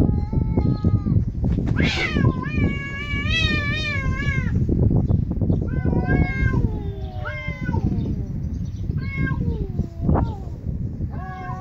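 Two domestic cats meowing back and forth in about six drawn-out calls, the longest about two and a half seconds, several sliding down in pitch at the end, over a low rumbling noise.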